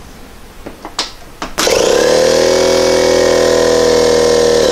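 Husky 41004 portable air compressor switched on about a second and a half in: its electric motor and piston pump start abruptly and run with a steady pitch, pumping up the tank. A few clicks come just before it starts.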